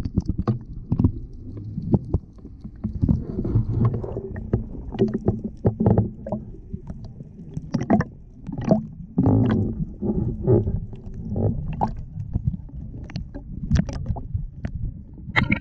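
Muffled water sloshing and bumping, irregular low rumbles broken by sharper knocks every second or so, as heard through a camera in or against the water.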